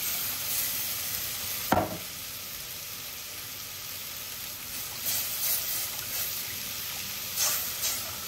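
Water sizzling and hissing steadily in a hot butter-and-flour roux in a stainless steel saucepan. There is a sharp clink about two seconds in and a few softer knocks later on.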